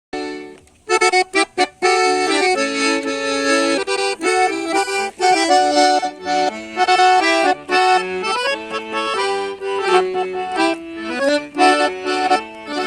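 Accordion playing an instrumental introduction: a few short chord stabs about a second in, then a running melody over held chords.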